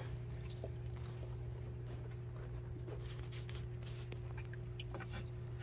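Newborn puppies nursing against their mother, giving faint small clicks and rustles, over a steady low hum.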